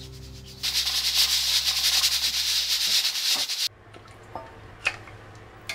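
Food cooking in a pot or pan: a loud, dense crackling hiss that starts about half a second in and cuts off abruptly about three and a half seconds in.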